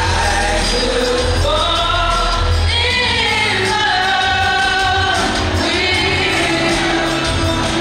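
Female voices singing a song into handheld microphones, amplified over an instrumental backing with a steady bass line. The sung notes glide and are held, with a long high phrase near the middle.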